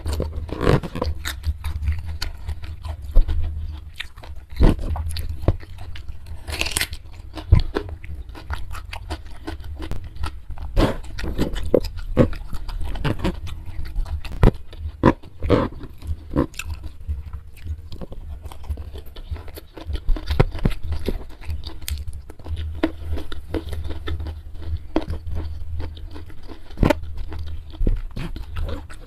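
Close-miked chewing and crunching of a mouthful of rice with spicy dried beef and raw vegetables, eaten by hand, with many quick crackles and wet mouth clicks. A low steady hum runs underneath.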